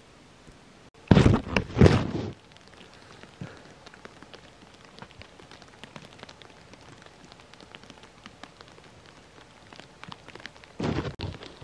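Irregular light patter of water dripping from the icicles along the snow-covered canvas tent's eave. A few loud rustling noises come about a second in, and again near the end.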